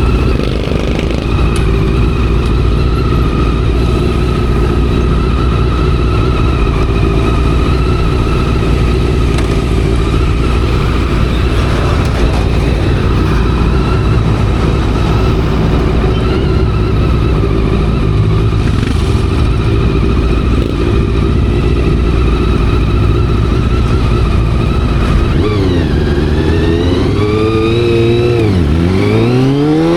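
Honda CBR400RR's carbureted inline-four running at a steady engine speed under way. Near the end the revs drop and climb again twice, rising quickly each time as the bike accelerates through the gears.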